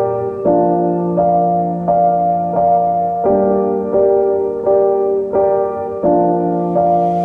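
Background music: a gentle piano or electric-piano melody with notes struck about every three-quarters of a second.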